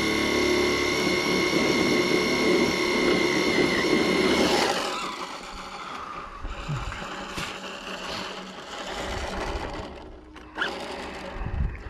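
Front-wheel-drive RC drag car doing a burnout while held in place: its brushless electric motor whines at a steady high pitch at full throttle as the front tires spin on the asphalt to heat them. The whine cuts off about four and a half seconds in.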